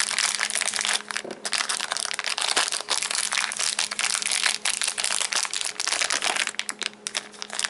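Plastic packaging crinkling and rustling continuously as it is handled, with short pauses about a second in and near the end.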